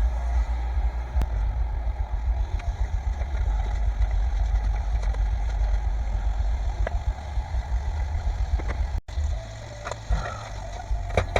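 Beef frying in a pan on a camp stove: a steady stove-and-sizzle noise over a low rumble, with a few sharp clicks of a utensil against the pan. The sound drops out briefly about nine seconds in.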